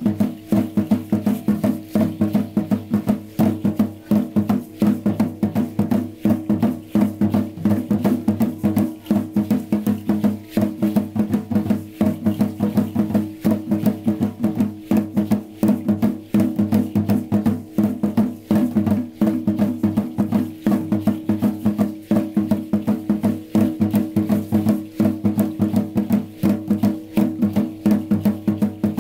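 Percussion-led dance music with a fast, even beat of sharp strikes over drums and steady low tones.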